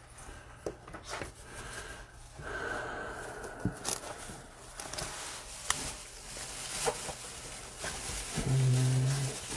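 Trading cards being handled and sorted through by hand: light rustling with a few sharp card clicks. A brief low hum near the end.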